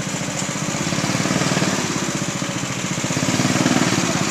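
Small petrol go-kart engine running steadily, a fast even putter, getting a little louder near the end.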